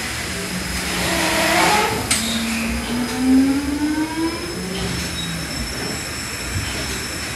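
The paddle steamer Waverley's triple-expansion diagonal steam engine running, a steady mechanical clatter of its turning cranks and rods. A faint rising tone sounds between about two and four and a half seconds in.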